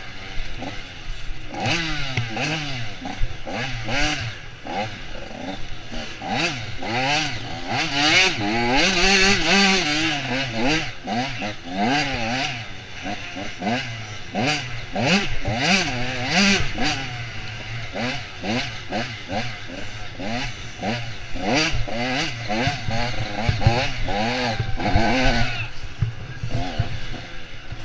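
Off-road dirt bike engine ridden hard, revving up and falling back over and over as the throttle is worked and gears change, with frequent knocks and clatter from the bike over rough ground.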